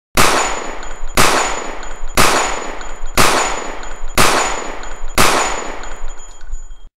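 Six loud single gunshots about a second apart, each with a long fading echo, as a logo sound effect, with a steady high ringing tone between shots. The sound cuts off suddenly near the end.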